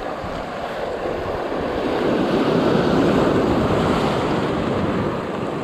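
Sea waves breaking and washing over shoreline rocks, one wash swelling up about a second and a half in, peaking near the middle and easing off, with wind on the microphone.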